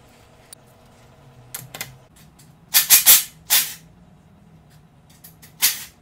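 Cordless impact driver with a 15 mm socket firing in short bursts, two close together and a third near the end, loosening the rear axle nuts of a bicycle. Scattered clicks and knocks of the wheel and tools being handled come in between.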